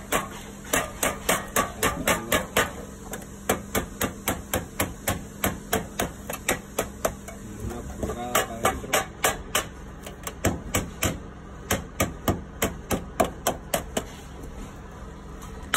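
Small rubber mallet tapping sheet-metal counter flashing into place against a brick chimney: a long series of quick, sharp taps, about three a second, in runs with brief pauses. The rubber head is used so the metal is not marked by the blows.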